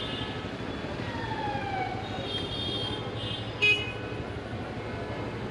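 Street traffic of motorbikes, scooters and cars running, with vehicle horns honking several times, one sliding down in pitch. A short, sharp toot about two-thirds of the way through is the loudest sound.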